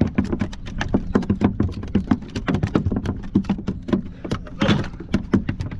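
Small waves slapping and knocking irregularly against a plastic kayak hull in choppy water, several slaps a second, over a low steady rumble.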